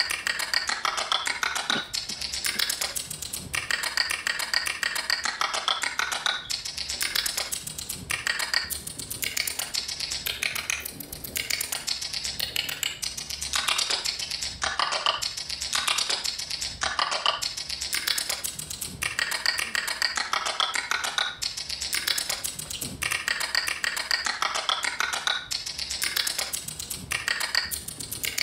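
Sound-design music track built from dense, rapid clicking and tapping like typing on a keyboard, going on without a break in a repeating pattern.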